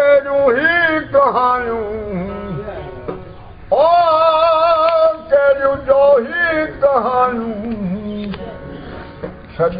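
A man singing in long, wavering, heavily ornamented phrases, accompanying himself on a plucked long-necked string instrument with a gourd body. One phrase ends about a second in, and a loud, long phrase starts a little before the middle, then the voice falls quieter toward the end.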